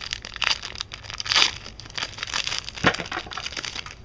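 Foil wrapper of a Yu-Gi-Oh! booster pack crinkling as it is torn open, in a run of crackles, the loudest about one and a half and three seconds in.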